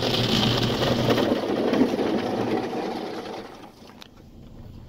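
Water from a roadside waterfall pouring and drumming onto a car's roof and windshield, heard from inside the cabin. It is loudest for the first three seconds, then fades away as the car comes out from under it.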